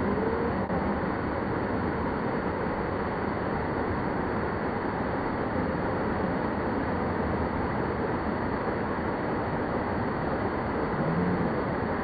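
Steady rushing of a waterfall pouring down onto rocks close by, with faint voices at the start and near the end.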